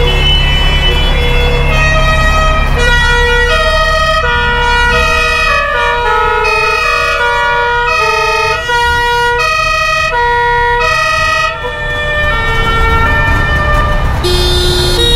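Several classic emergency vehicles sounding their two-tone sirens at once, the high-low notes overlapping out of step, over the low rumble of their engines.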